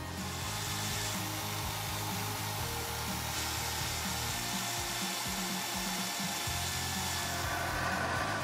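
Metal-cutting noise from small machine tools: a mini lathe cutting an aluminium workpiece and a drill bit boring into an aluminium block, a steady hiss of cutting that shifts a couple of times, with background music underneath.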